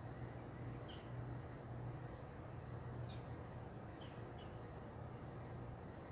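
Faint outdoor ambience: a steady low hum with a few short, high chirps scattered through it.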